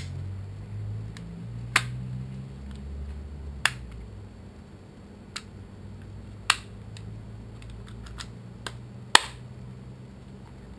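Plastic case parts of a Thermacell mosquito repeller being pressed and snapped together by hand: about half a dozen sharp clicks with lighter ticks between them, the loudest near the end.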